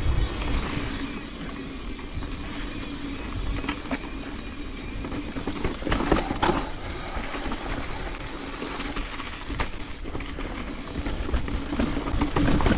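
Mountain bike rolling down a rocky trail: tyres over rock and dirt, with the chain and frame rattling, a steady hum, and a few sharp knocks about six seconds in. Wind rumbles on the microphone.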